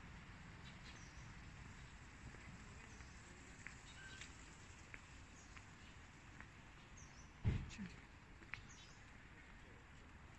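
Faint outdoor street ambience: a steady low background hiss and rumble with scattered short, high chirps and ticks. A brief low thump sounds about seven and a half seconds in.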